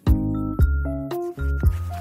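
Background music: a melody of bright pitched notes over a bass line, with a regular beat.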